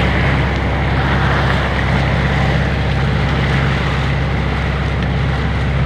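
Small motorboat under way at speed: its engine drones steadily under the rush and splash of water churning along the hull.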